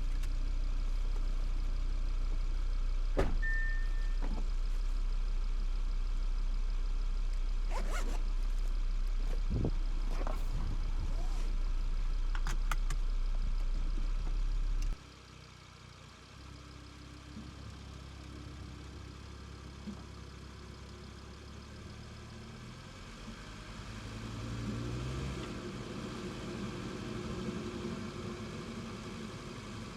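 Audi TT RS five-cylinder engine running at idle, picked up by a microphone placed near the intake, with handling knocks and rustles in the first half. About halfway through a loud low rumble cuts off suddenly. The engine carries on more quietly and swells briefly near the end.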